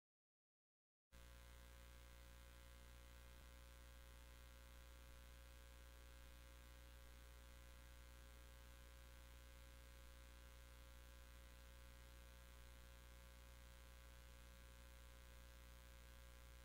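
Near silence: a faint, steady electrical mains hum that comes in about a second in, after dead silence.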